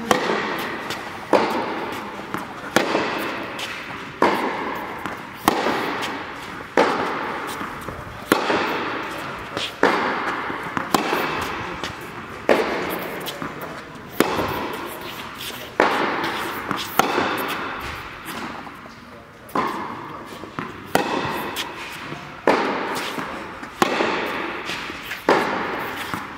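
Tennis ball being hit back and forth in a rally: sharp pops about every second and a half, each ringing on in the echo of a large indoor tennis hall.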